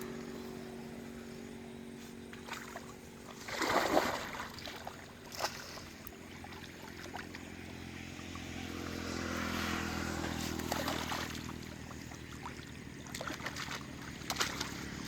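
An engine running steadily, with a loud splashing burst about four seconds in and the engine growing louder, then easing, around ten seconds in.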